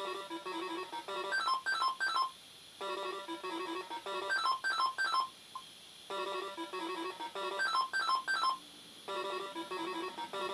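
Funky Doctor pachinko machine's electronic sound effect: a short beeping jingle that ends in three quick notes bending down in pitch, played about four times over with brief pauses between.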